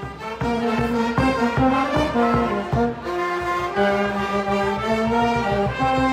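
Brass band music with held brass notes over a steady low beat, coming in abruptly.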